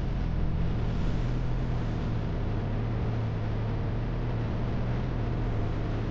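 ATV engine running at a steady speed while riding, its note holding even.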